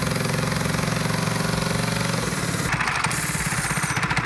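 Small Predator engine on a drift trike running at a steady pitch under a little throttle. About two seconds in the pitch drops and it runs on in slower, uneven beats, choking out. The owners put this down to the trike straining to move, perhaps on a flat tyre, rather than to the mixture or idle.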